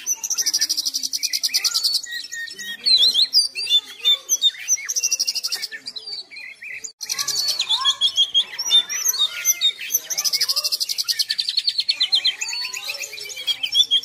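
Oriental magpie-robin (kacer) singing continuously: varied high whistled phrases broken by several long, fast trills of rapidly repeated notes, with a short lull about halfway through.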